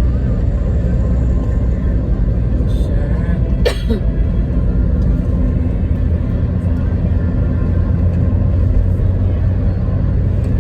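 Steady low rumble like a running vehicle, with one sharp click and a brief squeak about three and a half seconds in.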